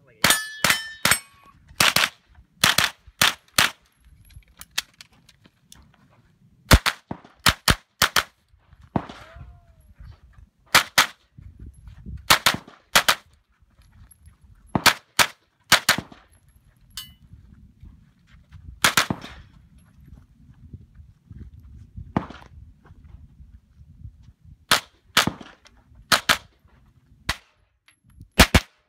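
9mm AR9 pistol-caliber carbine firing in quick pairs and short strings, with pauses of a few seconds between groups as the shooter moves. Steel targets ring when hit near the start.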